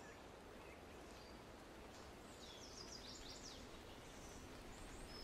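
Faint outdoor ambience with songbirds calling: a quick run of short falling chirps about two and a half seconds in, and a few brief high whistles.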